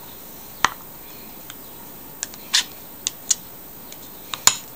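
Spoon scraping soft white cheese out of a plastic tub into a glass bowl: a few short, scattered clicks and scrapes as it knocks against the tub and bowl.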